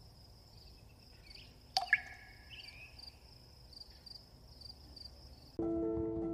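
Steady high insect trill, cricket-like, with a sharp click and a short chirp about two seconds in. Music starts near the end.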